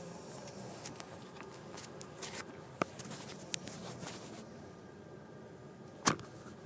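Faint rustling with scattered sharp clicks, the loudest about six seconds in; no snoring is heard.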